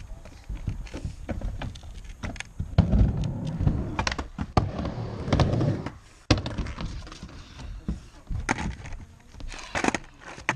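Skateboards on a wooden mini ramp: wheels rumbling across the surface, with repeated clacks and thuds of boards and trucks striking the ramp and coping. The loudest rolling runs from about three to six seconds in, ending in a sharp hard hit, and another run of rolling comes near the end.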